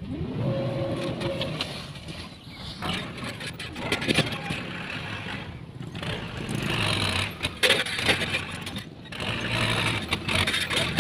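Heavy diesel construction machinery running steadily, with a few short knocks.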